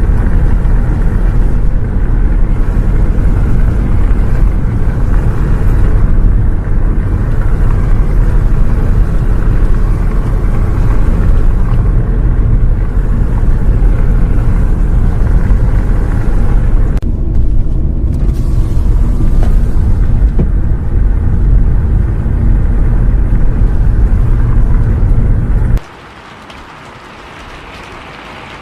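Loud, steady low rumble of a bus ride, engine and road drone with a hiss of rain over it. Near the end it cuts off abruptly, leaving a much quieter steady noise.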